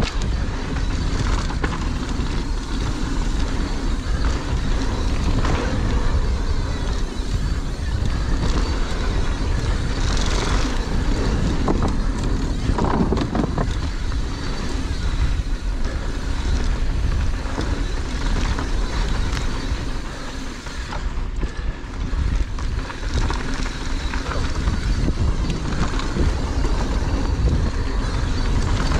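Wind rushing over the microphone of a downhill mountain bike on a dirt trail, a steady low rumble with scattered knocks and rattles from the bike over bumps.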